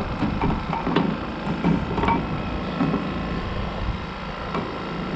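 Several short knocks and clunks, roughly one a second, as heavy metal differential parts are handled and set down, over a steady low rumble.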